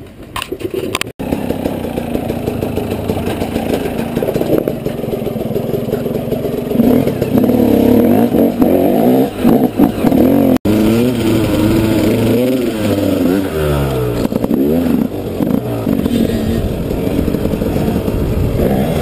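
Enduro dirt-bike engines revving up and down under riding load. The sound breaks off abruptly twice.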